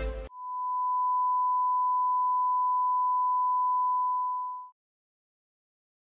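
Steady 1 kHz sine test tone, the reference tone that goes with colour bars. It holds one pitch for about four and a half seconds and cuts off suddenly.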